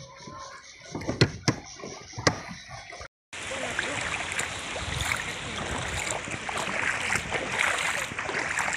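A few sharp knocks in the first couple of seconds. After a brief cut, a steady rush of water sloshing and lapping around a small boat.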